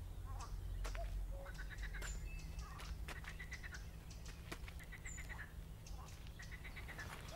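Ducks quacking in several short runs of quick calls, over a steady low outdoor rumble, with a few thin high chirps from a small bird.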